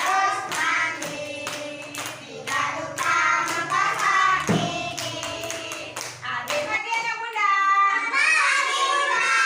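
Children singing a song together and clapping along in rhythm. The clapping stops about seven seconds in while the singing goes on.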